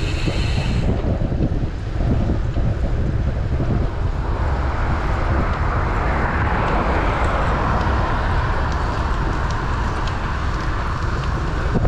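Wind buffeting the microphone of a camera riding along on a road bike, as a steady low rumble, with a rushing road noise that swells from about four seconds in and eases near the end.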